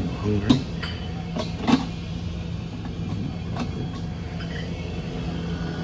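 Stainless steel roll-top chafing dish lids being opened and closed, with a few sharp metallic knocks, the loudest two about a second apart near the start. Under them runs a steady low hum.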